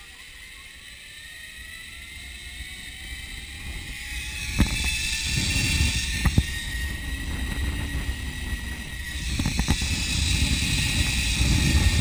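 Zip line trolley pulleys running along the steel cable, a whine that rises in pitch and grows louder as the rider picks up speed. From about four seconds in, rushing wind buffets the microphone, with a few sharp clicks.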